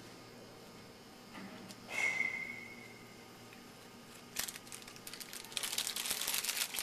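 A brief high-pitched squeak about two seconds in, then from about four seconds in the crackle and crinkle of a foil trading-card pack being torn open and its cards handled.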